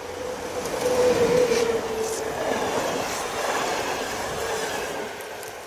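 PKP class EP07 electric locomotive and its passenger coaches passing at speed. The rush is loudest as the locomotive goes by about a second in, and the coaches follow with a few wheel clacks over rail joints.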